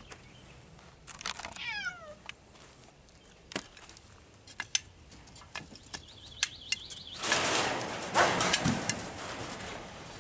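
A cat hissing for about two seconds, starting about seven seconds in, with a low falling growl inside it near the end. Earlier there is a brief run of falling calls and scattered clicks and steps on dry ground.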